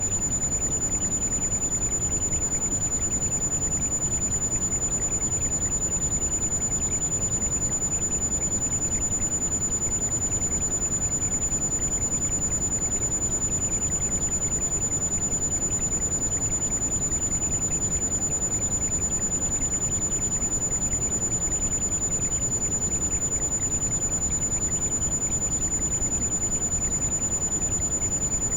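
Heavy rain falling steadily, with a thin high-pitched tone held unchanged over it: a tinnitus-like ringing mixed with the rain.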